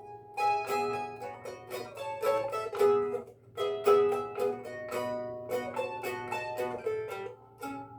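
Instrumental introduction of a song played on a plucked string instrument: a steady run of picked notes and chords, with no singing yet.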